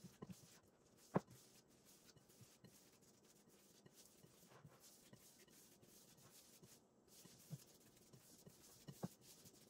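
Faint squelching and rubbing of hands kneading a ground beef mixture in a glass bowl, with a few soft clicks, the sharpest about a second in and another near the end.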